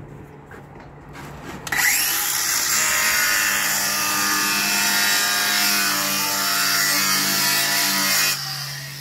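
Cordless angle grinder scoring a shallow notch in thin cement board so it can be snapped. The grinder cuts in about two seconds in with a loud, steady grinding, then near the end the cutting noise stops and the motor runs on more quietly.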